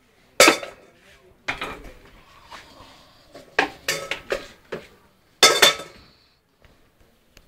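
A homemade drum kit of tin cans, buckets and metal lids on wooden posts, beaten with sticks in an irregular, unrhythmic way: clanking metallic hits with a short ring, the loudest pair about five and a half seconds in.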